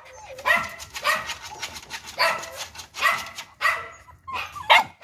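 Several young dogs whining and yelping in excited greeting, short high-pitched cries coming one after another every half second or so.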